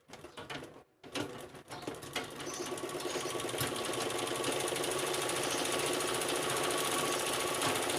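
Treadle sewing machine and its stand running, picking up speed over the first couple of seconds and then running steadily at a fast even rhythm. With the stand's wheel and bearing freshly tightened and oiled, the play is gone and it runs without the earlier clacking.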